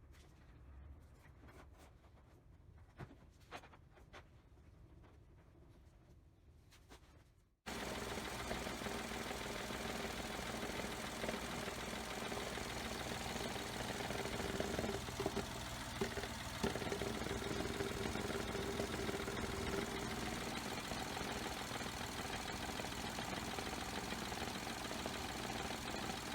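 Faint scattered clicks, then a sudden cut about eight seconds in to the Daihatsu Esse's three-cylinder KF engine running steadily. The engine sits on newly replaced engine mounts, which the owner says cured its abnormal noise.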